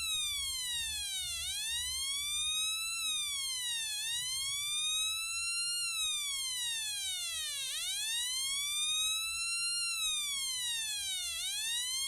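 Homemade two-transistor siren circuit (TIP42C and 2N2222) driving a loudspeaker from a 12 V battery, wailing like a police siren: a buzzy tone that sweeps up and then down again, about one cycle every three seconds.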